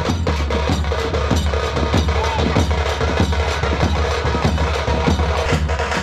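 Music driven by heavy drumming, with a dense beat of strikes over a deep, steady bass.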